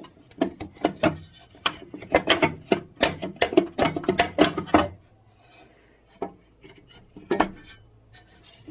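Hands taking the air filter cover off a Pioneer 600 chainsaw: a quick run of clicks, knocks and scraping for about five seconds, then a few single clicks as the cover comes free.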